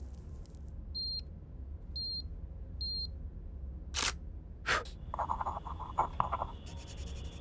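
An electronic device beeps three times, one high-pitched beep each second. Two sharp clicks and about a second of rough buzzing follow.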